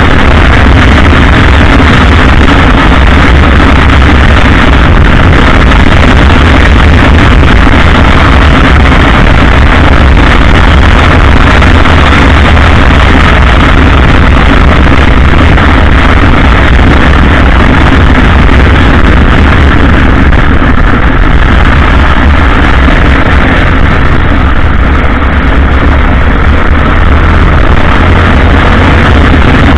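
Motorcycle riding steadily at road speed: a loud, constant rush of wind on the bike-mounted microphone mixed with engine and road noise, with no marked change in speed.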